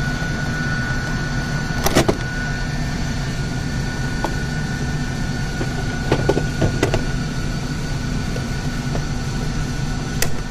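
Sharp plastic clicks and knocks as a screwdriver pries at an APC UPS battery's terminal connector and the battery is handled: one about two seconds in, a short cluster around six to seven seconds, and one more near the end. They sit over a steady background hum with a faint constant high tone.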